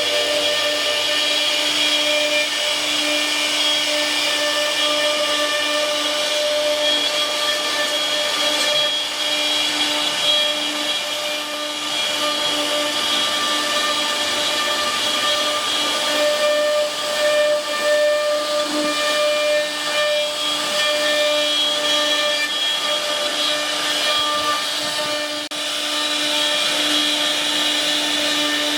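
CNC router spindle running and cutting wood: a steady high whine over a broad hiss, holding the same pitch throughout.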